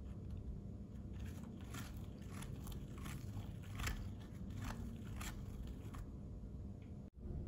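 A metal spoon spreading wet mint chutney over a tortilla: a string of soft, irregular scraping strokes over a low steady hum, cut off abruptly near the end.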